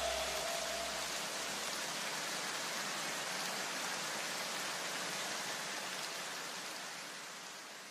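A steady, even hiss like static or rain noise, fading out near the end.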